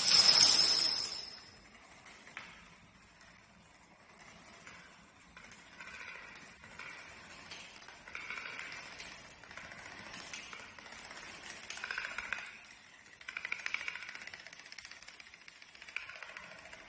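Rows of playing cards and dominoes toppling in a chain, a fast, fine clicking clatter that comes in waves as different lines go over, loudest around the middle and near the end. It opens with a louder burst that dies away about a second in.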